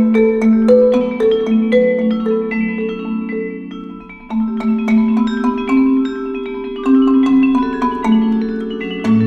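Vibraphone and marimba played together as a mallet duet: flurries of broken chords struck over ringing, sustained notes. The playing thins out briefly just before four seconds in, then new chords come in.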